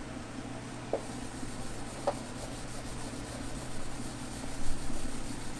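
Eraser rubbing across a whiteboard, wiping away drawings, with two light taps in the first two seconds and heavier strokes near the end.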